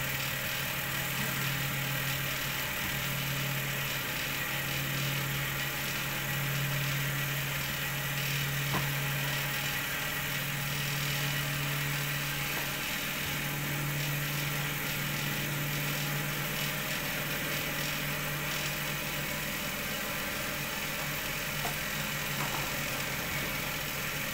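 Gas-heated cotton candy (spun sugar) machine running steadily: its spinning head's motor gives a steady low hum, with an even hiss over it.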